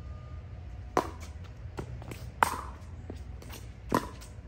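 Pickleball rally: paddles popping against the plastic ball, five sharp hits about three-quarters of a second apart, alternating louder and fainter, over a low steady hum.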